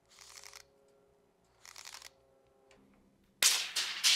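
Stanley FatMax tape measure's steel blade being fed out of its case in three short, quiet pulls, then a sudden loud clatter a little after three seconds in as the extended blade buckles and drops.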